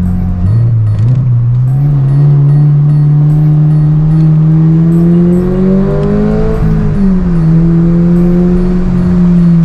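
Subaru BRZ's flat-four boxer engine under way, heard from inside the cabin: the revs step up about half a second in and climb steadily for about six seconds, dip briefly, hold, then ease off near the end.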